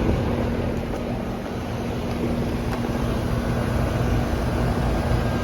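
Outdoor air-conditioning condensing unit running: steady rush from the condenser fan and a low, steady hum from the compressor that comes in just after the start.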